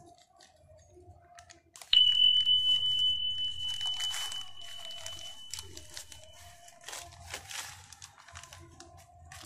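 Thin black plastic nursery bag crinkling and tearing as it is peeled off a sapling's soil ball. About two seconds in, a bell-like chime sounds one high steady tone, the loudest sound, fading away over about five seconds.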